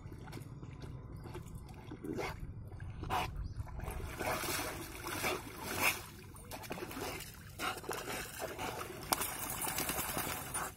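Water splashing as a swimming Rottweiler paddles and thrashes beside a person wading in it; scattered at first, the splashing grows louder and more continuous about four seconds in.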